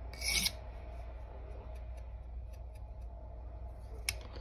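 A steel knife blade drawn once across an oiled coarse sharpening stone, a short rasp at the start. Then a pause in the strokes with a few faint ticks and one sharp click near the end.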